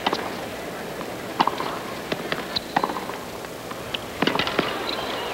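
Tennis rally on a hard court: a ball struck back and forth by rackets, each hit a sharp pop, with ball bounces between the hits.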